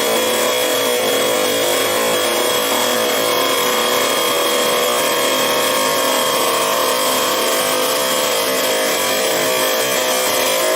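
Chop saw cutting steel reinforcement bar, running at a steady pitch with a high whine over a continuous grinding hiss.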